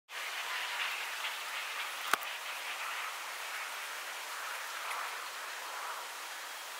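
Outdoor background sound played eight times too fast, turned into a steady rain-like hiss, with one sharp click about two seconds in.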